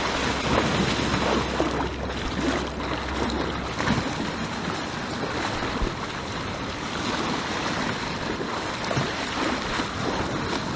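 Ocean surf washing and splashing at the shoreline, with wind buffeting the microphone; a low wind rumble drops away about four seconds in.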